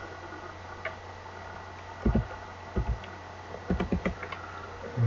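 A few separate computer keyboard keystrokes, the first about two seconds in and a short cluster near the end, over a steady low hum.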